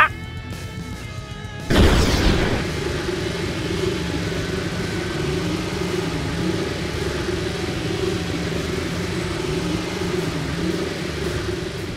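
Animation sound effects over background music: a short rising whistle-like tone at the start, then a sudden loud whoosh about two seconds in. It gives way to a steady, wavering rumble of a super-speed running effect.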